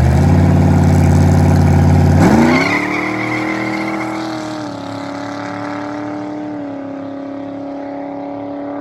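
An engine running low, then revving up about two seconds in and holding a steady higher pitch that steps down slightly twice.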